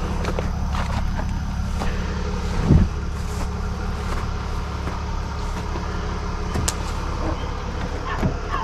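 A truck engine idling steadily, a low even hum, with one dull thump a little under three seconds in.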